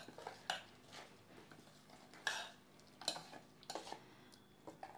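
A spoon scraping and clinking against a pot as a watery fish-curry base is stirred, in a few separate strokes.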